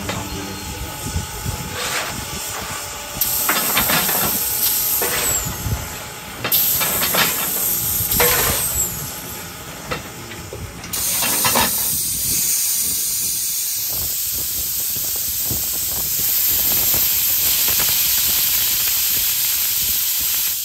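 Steam hissing continuously in the cab of steam locomotive No. 475, with occasional short knocks. The hiss grows louder about three, six and eleven seconds in and stays loud from the last of these.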